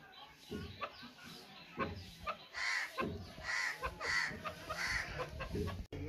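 Grey francolin calling: a run of about four short calls, roughly half a second apart, starting around halfway through, with softer calls and faint clicks around them.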